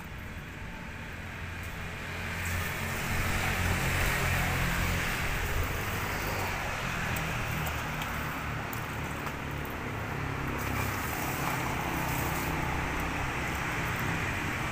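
Steady road traffic noise with a low rumble, growing louder about two seconds in and then holding.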